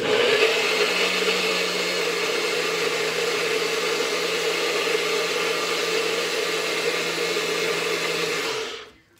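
NutriBullet blender running steadily as it blends banana, eggs and peanut butter into a batter, then cutting off near the end.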